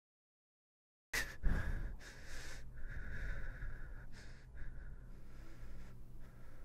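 A woman breathing heavily and unevenly, with sniffs: after a second of silence comes a run of breaths of different lengths over a faint low hum.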